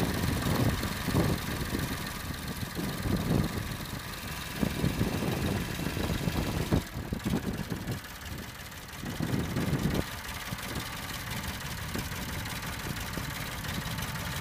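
Massey Ferguson 231 tractor's diesel engine running near idle while the loader raises its bucket, with an uneven low rumble. It dips about seven seconds in, swells briefly, then settles to a steadier, quieter running note about ten seconds in.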